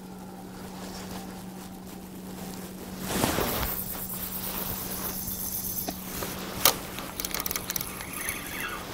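Wind buffets the microphone in a swell starting about three seconds in. Then comes a sharp click and a run of small clicks and rattles as a fishing rod is handled at a metal rod rack, over a steady low hum.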